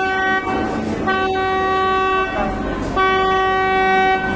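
Electric passenger ferry's horn sounding steady blasts of about a second each, one after another: the tail of one and then two more.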